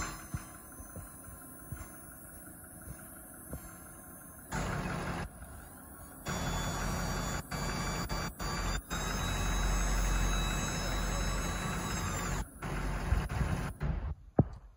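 Ford F-550's 6.7-litre turbo-diesel V8 idling while the chip box's hydraulic dump hoist runs in several stretches, lowering the box. Each stretch is a louder rush with a steady whine that starts and stops suddenly; the longest lasts about six seconds, from about six seconds in.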